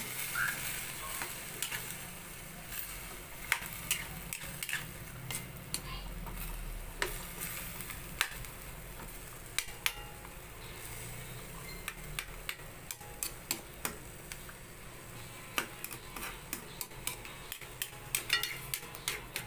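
A spatula scraping and clicking against a stainless steel pan, irregularly throughout, as ground pork, diced potatoes and carrots are stirred, over a faint steady sizzle.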